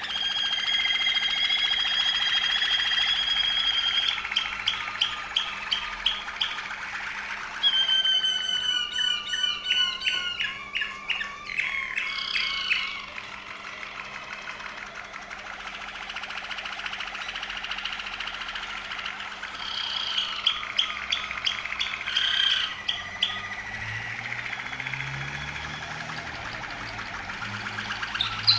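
Waterslager Malinois canary singing: a long held note, then runs of rapid repeated notes and rolling, wavering phrases, with a quieter stretch in the middle before the song picks up again.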